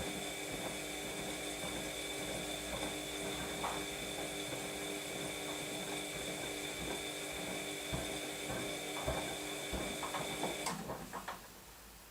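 Washing machine running, a steady motor hum with scattered clicks and knocks from the turning drum, which stops suddenly near the end, leaving a few faint ticks.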